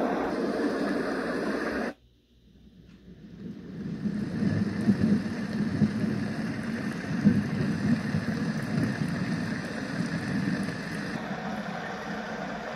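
Letsfit sleep sound machine playing its built-in nature-sound recordings through its speaker. One steady rushing track stops abruptly about two seconds in, and the next fades in over about two seconds: a steady rushing noise with a low rumble that swells now and then.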